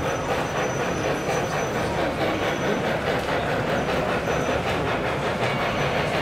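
HO scale model steam locomotive with a DCC sound decoder, its chuffing and running sounds playing as it moves slowly along the track, heard over the steady background noise of an exhibition hall.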